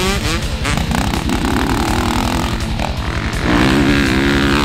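Honda four-stroke motocross bike running hard on a dirt track, its engine note rising and falling as the rider works the throttle through a turn, then getting louder as it revs up about three and a half seconds in.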